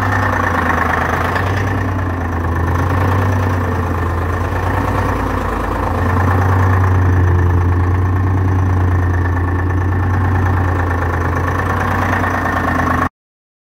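1972 Detroit Diesel 6V53 two-stroke V6 diesel idling steadily, freshly started from cold in freezing weather. The sound cuts off abruptly just before the end.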